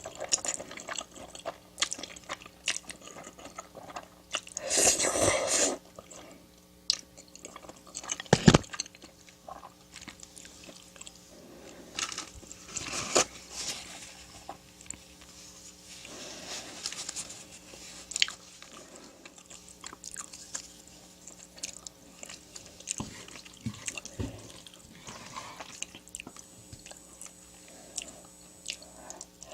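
Close-miked eating: biting, chewing and crunching on food in many short crackles. There is a longer loud noisy stretch about five seconds in and one sharp knock a few seconds later.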